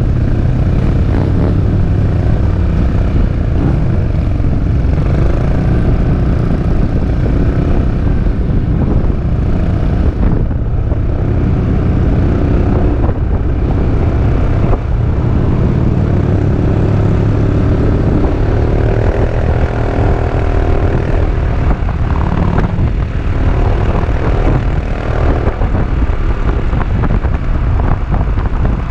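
Peugeot Métropolis scooter's 400 cc single-cylinder engine running steadily under way, with wind rushing over the microphone; the engine's pitch rises and falls in the middle as the speed changes.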